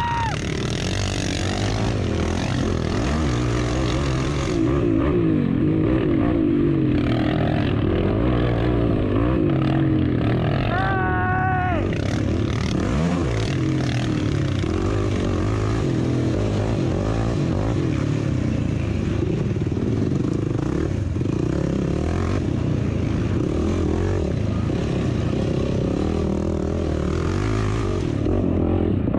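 Racing vehicle's engine running hard, its pitch rising and falling continually as it revs up and eases off. About eleven seconds in, a brief high warbling squeal sounds over it.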